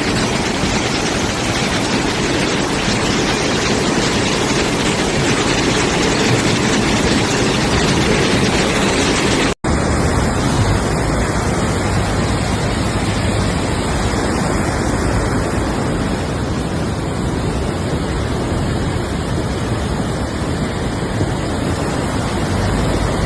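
Floodwater rushing in a swollen torrent, a loud, steady roar. It cuts out for an instant about ten seconds in and then carries on.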